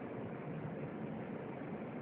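Steady rushing noise of an Airbus airliner's cabin, from its engines and the air around it, holding an even level.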